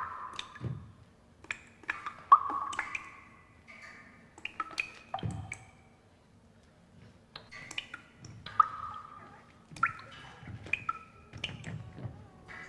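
Sparse water-drop plinks and sharp clicks of an experimental dance score, each note ringing briefly, in irregular clusters with a quiet gap midway. A few soft low thuds fall between them.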